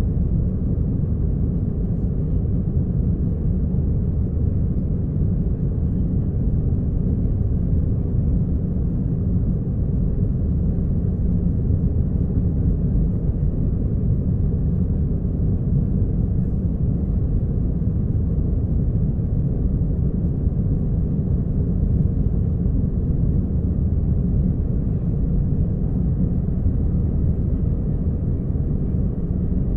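Aircraft engines giving a steady low rumble, with no change in pitch or level.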